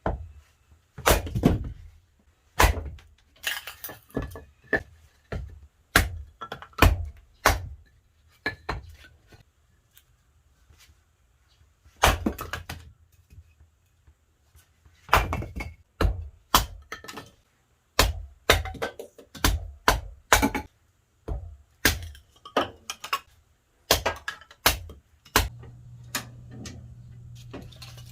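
A run of sharp, irregular knocks, cracks and clacks of hard objects being handled and struck, in quick clusters with short pauses. A low steady hum comes in a few seconds before the end.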